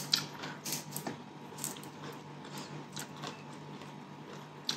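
Quiet handling sounds at a meal table: faint, scattered small clicks and rustles from hands working food and utensils, over a low steady hum.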